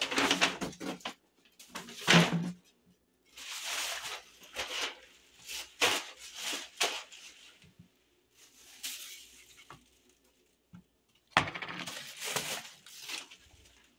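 Rustling of a full plastic trash bag and a paper bag being handled, with light clinks from the things inside, in irregular bursts.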